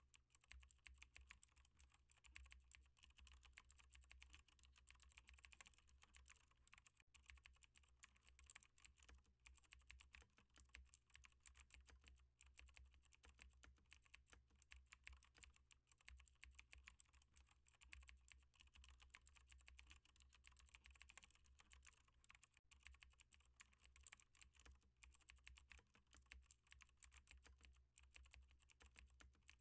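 Faint computer keyboard typing: a quick, continuous stream of keystrokes with no pauses, over a steady low hum.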